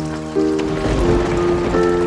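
Slow relaxation music with long held chords over steady rain. About half a second in, a low rumble of thunder comes in and the sound grows louder.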